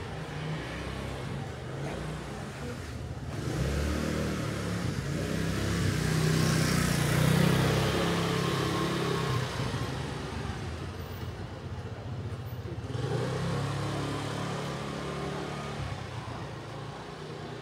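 A motor vehicle's engine drawing near and passing close by, loudest about halfway through and then fading. A second, smaller swell of engine sound follows a few seconds later.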